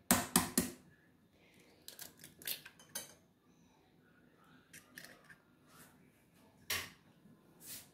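An egg knocked sharply against the rim of a glass bowl, three quick knocks at the start, then lighter clicks as the shell is pulled apart over the bowl. Near the end a steel fork clinks against the glass bowl.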